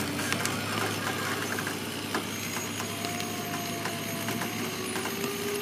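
An engine idling steadily, with a faint tone that rises slowly near the end.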